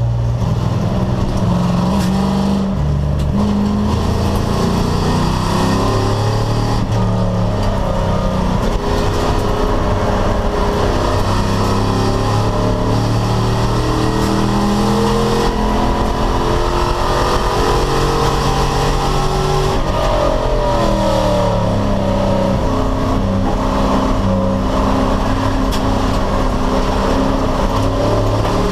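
Race car engine under hard use through the gears: pitch climbing on each gear and dropping at each shift or braking point, over and over.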